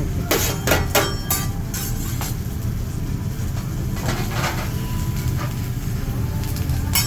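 Hibachi chef's metal spatulas clacking on the teppanyaki griddle: a quick run of sharp clacks in the first couple of seconds, a few more around four seconds in and one near the end, over a steady low rumble of restaurant background noise.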